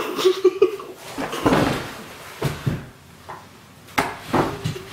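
Coughing and sputtering as a mouthful of dry ground cinnamon is blown out: a few harsh bursts of breath, after a short pained moan at the start. A sharp knock comes about four seconds in.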